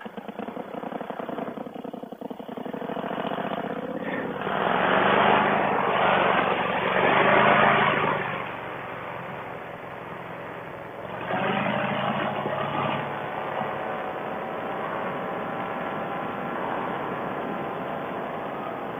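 Four-stroke paramotor engine running, throttled up strongly twice (loudest about four to eight seconds in, again briefly about eleven seconds in), then settling to a steady run.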